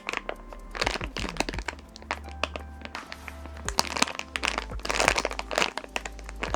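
Plastic squishy packaging crinkling in bursts as it is handled, over background music.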